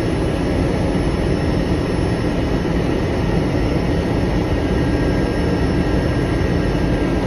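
Single-engine propeller aircraft's engine running steadily at high power during a takeoff roll, heard from inside the cockpit.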